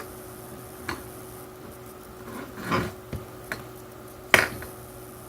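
Small plastic parts of a toy drone being handled: a few separate clicks and a brief scrape, with one sharp click about four seconds in as the loudest.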